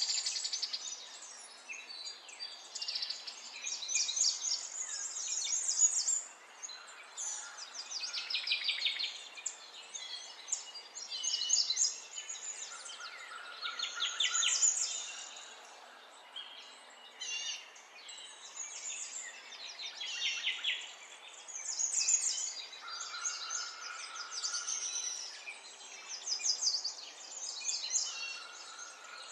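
Birds singing: a busy stream of high chirps and trills one after another, with a few short held whistles.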